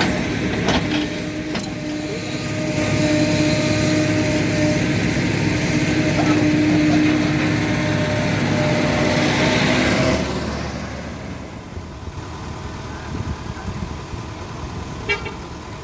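Kobelco SK75 excavator's diesel engine running hard while digging, with a few sharp knocks near the start. About ten seconds in it drops to a quieter, steadier run.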